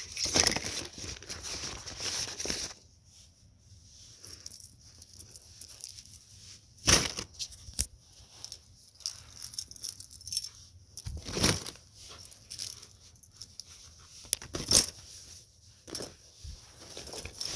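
Small plastic fidget toys being handled and packed into a bag: rustling for the first few seconds, then quieter handling broken by a few sharp knocks and clacks.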